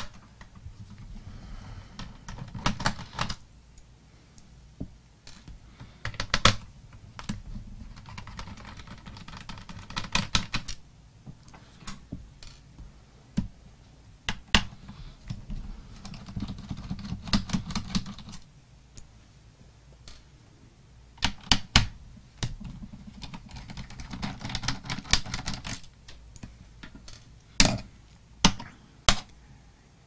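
Small Phillips screwdriver backing out the bottom-case screws of a laptop, heard as spells of light scraping and rattling. Between them come sharp clicks and taps as screws and tools are handled and set down.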